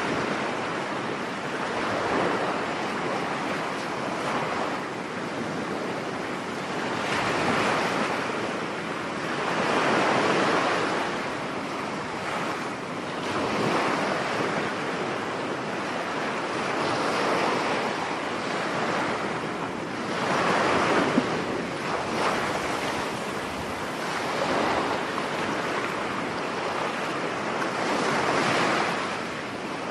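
Rough surf breaking on a beach in stormy weather, the waves swelling and washing back every few seconds, with wind blowing.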